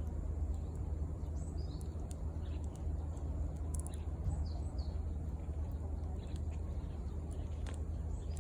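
Wood campfire crackling, with sharp pops scattered throughout, over a steady low rumble. Small birds chirp briefly in the background.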